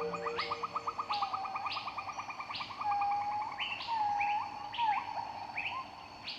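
Birds calling: a rapid trill of short notes, about ten a second, over the first three seconds, mixed with repeated upward-sweeping calls and a few slurred whistles in the middle.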